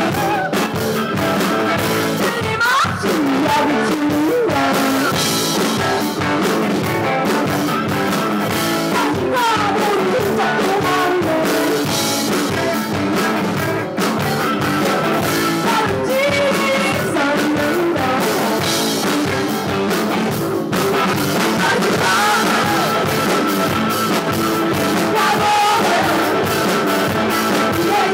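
Live rock band playing, with electric guitar and a woman singing over it.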